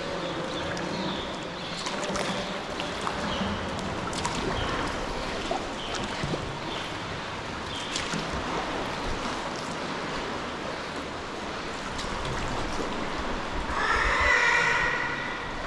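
Water lapping and splashing around a sea kayak, with the repeated short, high calls of a cliff seabird colony; a louder, drawn-out call stands out near the end.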